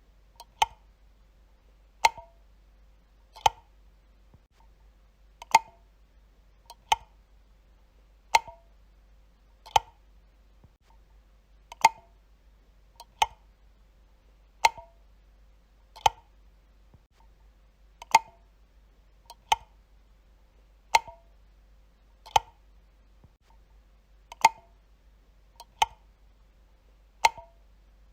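A light switch flicked back and forth, each flick a single sharp click, about one every one and a half seconds, with a slightly longer pause after every few clicks.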